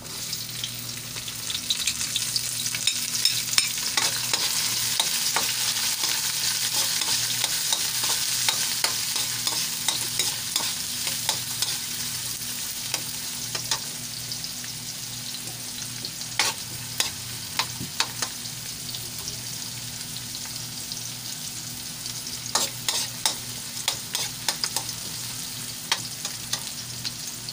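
Chopped red onion and garlic sizzling in hot oil in a wide metal wok, stirred with a metal spatula that scrapes and clicks against the pan now and then. The sizzle picks up as the onion goes in and is strongest for the first ten seconds or so, then eases.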